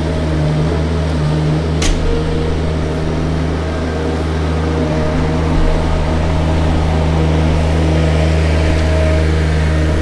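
Diesel engines of a working skid steer and a compact pivot-steer loader running steadily with a low hum, getting a little louder in the second half. A single sharp knock about two seconds in.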